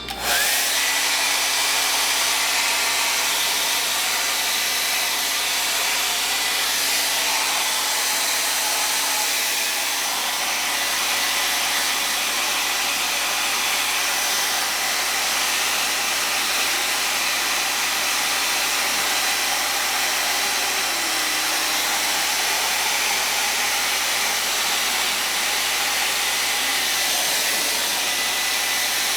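Revlon hair blow dryer switched on and running steadily while drying long, thick hair: an even rush of air with a faint high whine.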